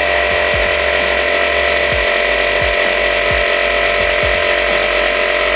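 A Black & Decker Air Station portable electric tyre inflator running steadily as it pumps air into a low car tyre, bringing it up from 2.3 to 2.4 bar.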